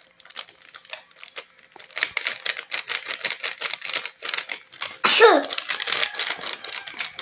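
Plastic sachet of breading mix crinkling and being shaken and tapped as its powder pours onto a plate of flour: a rapid run of crackles starting about two seconds in. A short sound falling in pitch stands out about five seconds in.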